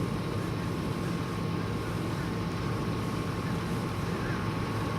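A steady low motor hum with wind noise on the microphone.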